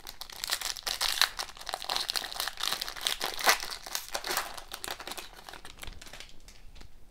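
Foil wrapper of a hockey card pack being torn open and crinkled by hand, busiest in the first few seconds and thinning out near the end.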